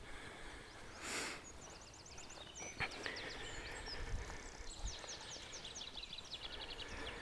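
A small songbird singing: two phrases of quick, high, descending notes, the second running into a fast trill near the end. A short rush of noise about a second in.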